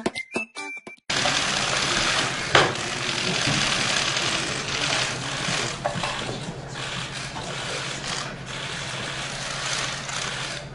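A short end of whistling intro music, then, about a second in, a dense rapid clatter of many press camera shutters firing at once, with one sharper click a little later and a low steady room hum under it.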